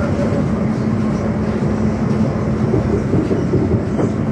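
Cabin noise of a Class 710 electric multiple unit under way: a steady rumble of wheels on rail with a constant electrical hum and a faint knock near the end.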